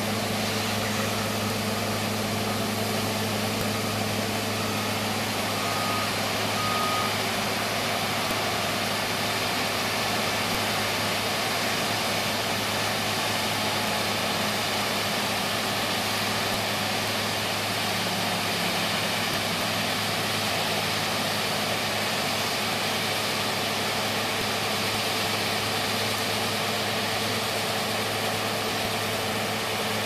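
New Holland CR8080 combine harvester running steadily while its unloading auger empties soybeans into a trailer: an unbroken diesel engine and machinery drone. Two short high beeps sound about six and seven seconds in.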